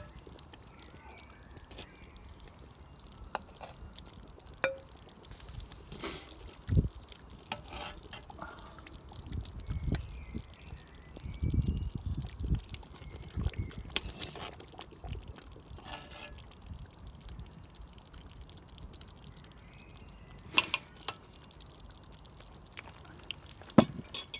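A ladle scooping thick stew out of a metal cauldron and pouring it into a ceramic bowl, with wet plops and pours. Several sharp clinks come from the ladle striking the pot.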